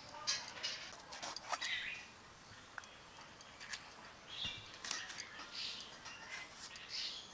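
A green bell pepper being cut against the upright blade of a boti: a few faint crisp snaps and clicks as the blade goes through. Small birds chirp now and then in the background.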